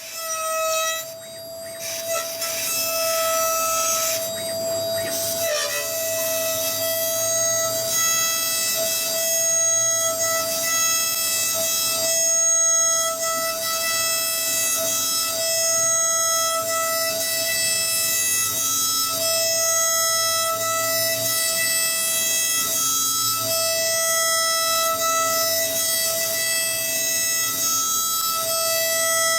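Background music led by a violin-like bowed-string sound holding one long steady note, broken only briefly a few times.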